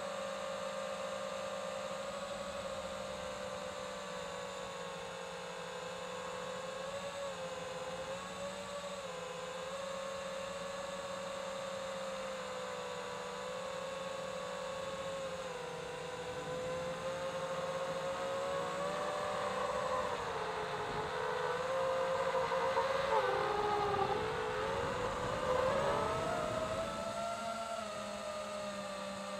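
FPV drone's motors and propellers whining steadily, several pitches together that drift with the throttle. In the last third the whine gets louder, with quick dips and rises in pitch.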